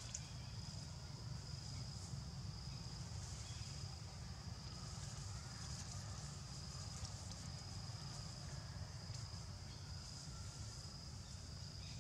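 Steady high-pitched insect drone, a thin unbroken whine, over a low steady rumble.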